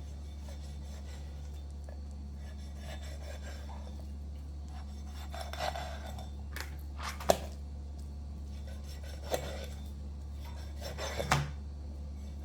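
Kitchen dishes and utensils clinking and knocking: a few separate sharp knocks starting about halfway through, over a steady low hum.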